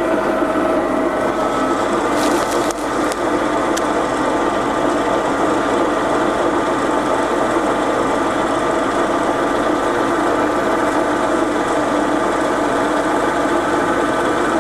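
Bemato three-phase horizontal bandsaw running steadily with no workpiece, the motor, blade and coolant pump making a constant hum while the bow lowers slowly under its hydraulic down-feed. A few light clicks come about two to four seconds in.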